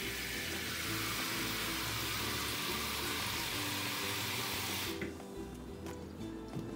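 Kitchen spray faucet running water onto a steel bowl of soaked sticky rice to rinse it, a steady spray that cuts off about five seconds in.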